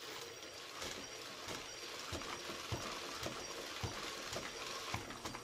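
Crank-driven test leg on a 3D-printed cycloidal gearbox and brushless motor, running in reverse: the foot thumps on a carpeted floor a little under twice a second, over the steady whir of the motor and gearbox. The thumps grow stronger after about two seconds.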